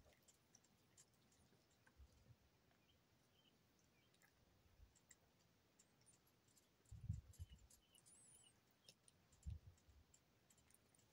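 Faint, irregular clicking as a cat licks at the metal spout of a gerbil water bottle, with a few soft low thumps, the loudest about seven seconds in and again about two seconds later.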